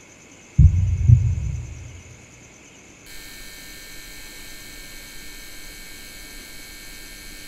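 Two deep, low thuds about half a second apart, like a heavy heartbeat, fading out over about a second. From about three seconds in, a steady faint hum and hiss.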